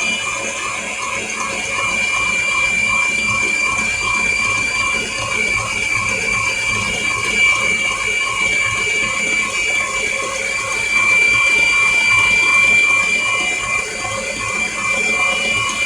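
A small electric kitchen appliance motor running steadily with a high whine and a regular pulse about two or three times a second.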